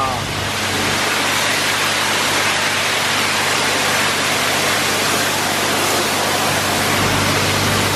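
Water jets of an automatic car wash spraying a car's body and wheels: a steady, even hiss of spray, with a steady low hum underneath.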